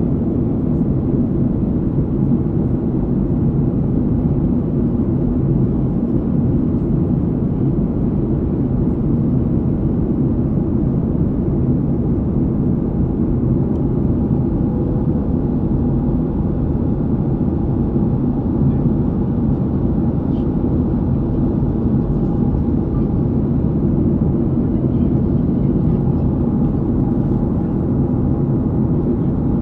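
Steady cabin noise of a jet airliner in flight: an even, low rush of engine and airflow, with a faint steady hum riding on it.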